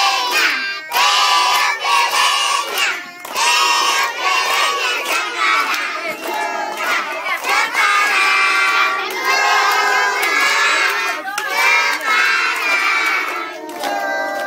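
A crowd of children singing a birthday song together, loud and half-shouted, in phrases with short breaks between them.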